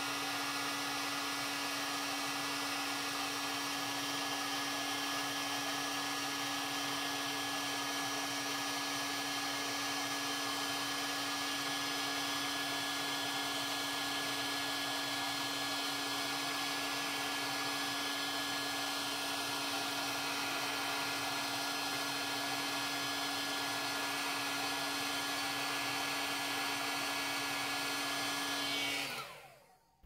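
Electric heat gun blowing steadily with a constant fan whine, shrinking adhesive-lined marine heat-shrink tubing over a soldered wire splice. It is switched off about a second before the end, and its whine falls away as the fan runs down.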